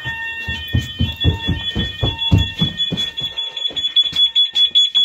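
Fire alarm sounders of a C-Tec CFP system going off after a break-glass call point has been operated: several steady high tones that pulse rapidly near the end and cut off suddenly at the very end. Loud low thumps, about three a second, run underneath.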